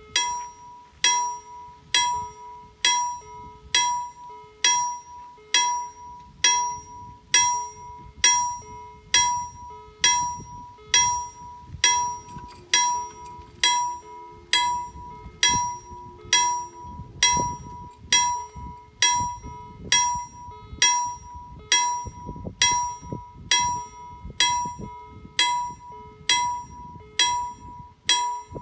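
Level-crossing warning bell (KLD-40) starting abruptly and ringing with a steady, even stroke, each strike a clear ringing tone. It signals that a train is approaching and the crossing barriers are coming down.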